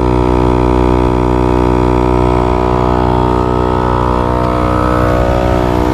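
Smittybilt portable 12-volt air compressor running steadily, its motor and piston giving a loud, even drone while it inflates a truck tire through a coiled air hose.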